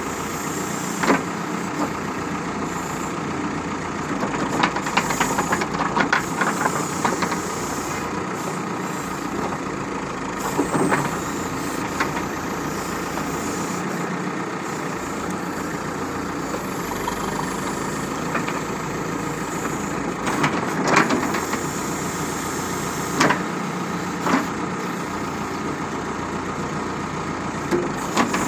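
Backhoe loader's diesel engine running steadily as the backhoe digs a trench, with a dozen or so short, sharp clanks from the bucket and boom scattered through.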